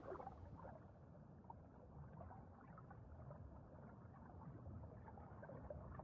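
Near silence with faint water sounds: soft lapping and trickling, flecked with small ticks.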